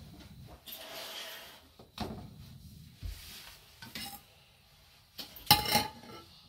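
A metal camping pot and its folding wire handle clink, with separate clicks, as the pot is lifted and set onto the pot supports of a small gas canister stove. The loudest sound is a ringing metal clatter near the end, as the pot lands on the supports. A short hiss comes about a second in.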